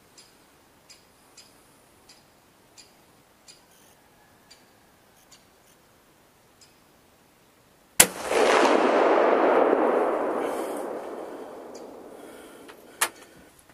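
Faint ticking, then a single rifle shot about eight seconds in, its report rolling and echoing over the forest as it fades for several seconds. A sharp click follows near the end.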